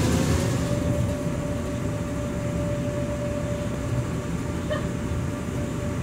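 Steady low rumble with a steady hum whose pitch rises slightly in the first second and then holds.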